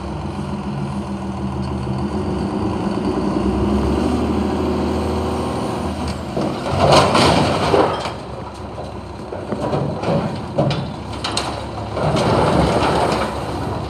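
Front-load garbage truck's engine revving up to drive the hydraulic arms as they lift a dumpster over the cab. Then two loud spells of crashing and rattling, about seven and twelve seconds in, as the dumpster is tipped and its load falls into the hopper.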